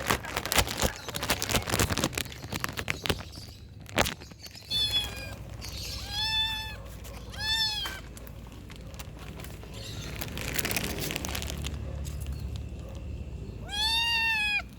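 Kittens meowing: four short, high-pitched meows, three close together about five to eight seconds in and one more near the end. They are hungry. The first few seconds hold rustling and clicking handling noises.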